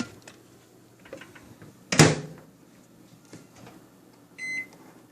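Microwave oven door shut with a loud clunk about two seconds in, after a few light clicks, then a single short keypad beep near the end.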